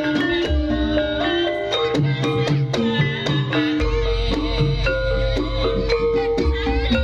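Javanese gamelan ensemble playing a Banyumasan piece: struck metallophones ringing out a melody over steady hand-drum strokes, with a deep low tone coming in about four seconds in.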